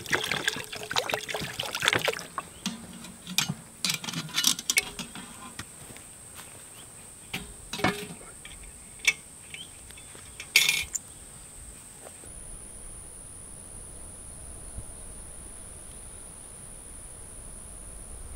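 Insects keep up a steady high-pitched buzz, with irregular clicks, knocks and clatter over it for the first ten seconds or so, the sharpest one about ten seconds in.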